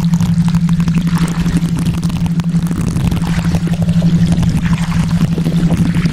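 Steady water noise over a constant low hum tone, the theta-wave tone of a subliminal audio track.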